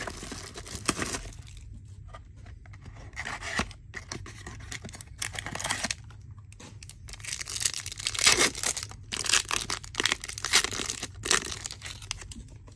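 Packaging of a baseball card pack or box being torn open and crinkled, in uneven rough tearing bursts with short pauses between.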